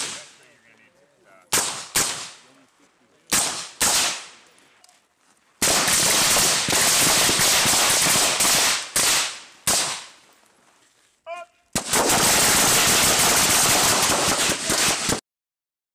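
Suppressed M4 carbines firing on a rifle range. First come single shots and quick pairs, then two long stretches of rapid, overlapping fire from several rifles at once, with a few lone shots between them. The fire stops abruptly near the end.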